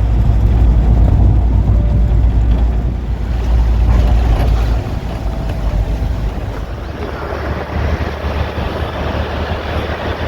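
Low rumble of a moving vehicle with wind buffeting the microphone, heaviest for the first five seconds and then easing to a steadier, lighter noise.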